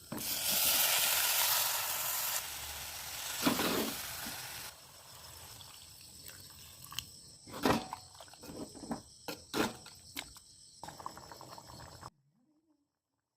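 Pepper chicken sizzling in a frying pan: a loud hiss at first that eases after a couple of seconds, with a knock near the start and scattered utensil clicks and scrapes against the pan later on. The sound cuts off to silence near the end.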